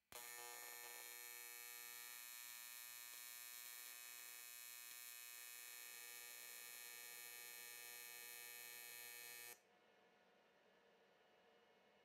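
TIG welding arc on thin aluminum sheet, a steady electric hum that switches on sharply and cuts off suddenly about nine and a half seconds in as the bead is run off the end of the seam.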